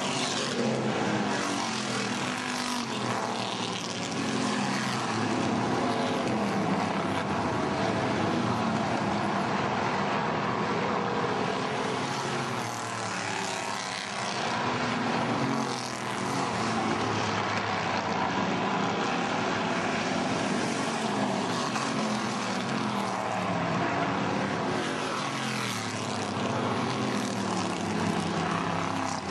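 A pack of hobby-class stock cars racing, their engines running hard together in a continuous drone. The pitch keeps sweeping up and down as cars accelerate and pass.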